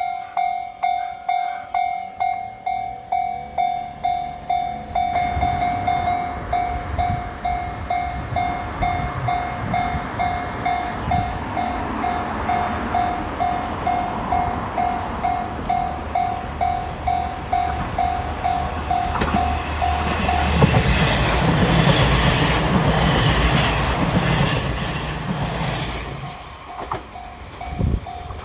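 A Japanese level-crossing warning bell rings in a steady repeating ding, about one and a half strokes a second, while a KiHa 47 diesel railcar approaches with a rising rumble. From about 20 seconds in, the railcar passes over the crossing: its diesel engine and wheels clattering over the rails are the loudest sound and cover the bell for about five seconds. The bell is heard again near the end.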